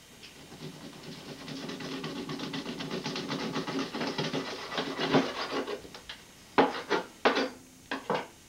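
Kitchen knife sawing back and forth through a muskrat carcass on a wooden cutting board, a fast rasping of blade on meat and bone. Near the end come four or five sharp knocks against the board.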